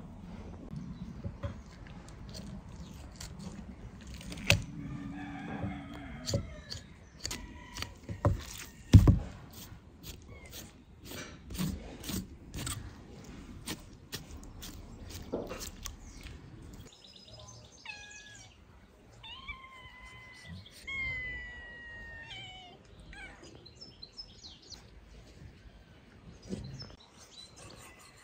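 Knife knocking and chopping on a wooden cutting board as raw lamb is cut up, in irregular knocks with a few sharp chops. Past the middle the knocking stops and birds call in short, thin chirps.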